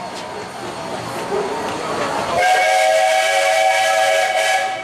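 Steam locomotive of the Cedar Point & Lake Erie Railroad rolling along, then its chime whistle blows one long blast of several notes at once over a steam hiss, starting about halfway through.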